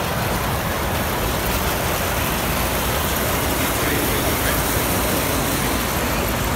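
Standard gauge tinplate toy steam locomotive and a long train of hopper cars running past close by on metal track, a steady rumbling rattle of wheels and motor, over crowd hubbub in a large hall.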